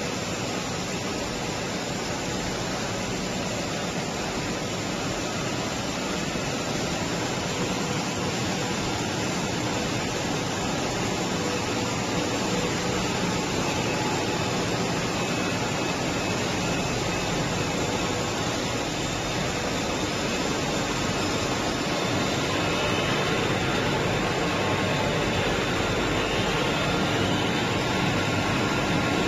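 Steady machinery noise of a PET strapping-band production line running: an even hiss with a few faint constant hums, rising slightly in level.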